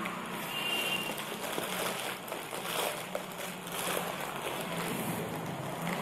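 Plastic courier delivery pouch rustling and crinkling irregularly in the hands as it is cut open with scissors.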